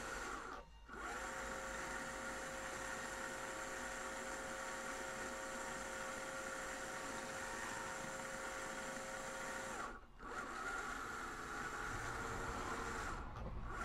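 Small electric turret traverse motor of a 1/6 scale Armortek M26 Pershing RC tank running steadily, its gear turning the turret ring, with a steady whine. It cuts out briefly about a second in, again near ten seconds and near the end. The gears are meshing with no grinding or slipping.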